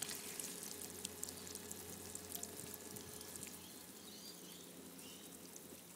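Water trickling and spattering out of a sea kayak pump's outlet fitted with a flexible plastic flap, a crackly dribble that slowly tapers off.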